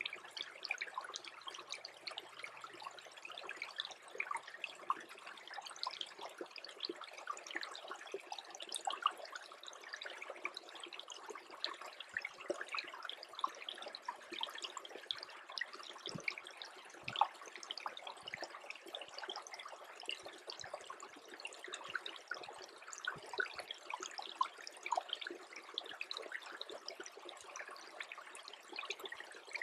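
Small freezing brook trickling and dripping, a steady patter of many tiny quick splashes.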